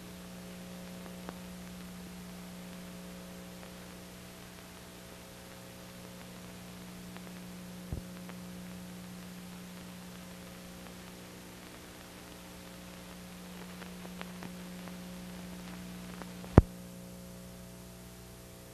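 Steady electrical mains hum with faint hiss on a blank recording, broken by a few clicks, one sharper than the rest near the end.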